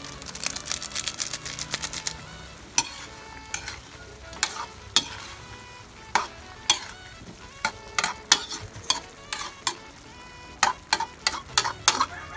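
A utensil stirring chicken and vegetables in a stainless steel wok, scraping and clinking against the pan over a low sizzle. The strokes come quickly for the first couple of seconds, then slow to separate clinks that ring briefly.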